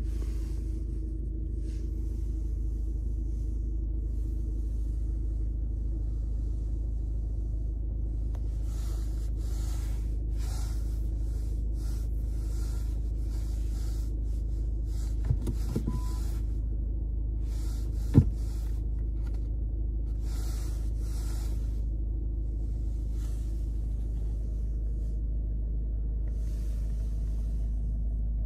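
Steady low rumble of a VW Golf GTD's 2.0 TDI four-cylinder diesel idling, heard inside the cabin. A hiss comes and goes, and just past the middle there are two sharp clicks a few seconds apart with a short beep between them.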